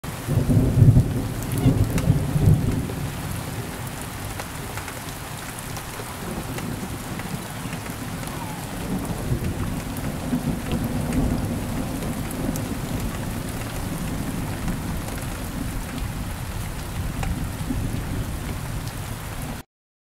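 Rain falling steadily, a hiss with scattered drip ticks, with a low rumble of thunder in the first few seconds that is the loudest part and a fainter rumble about ten seconds in.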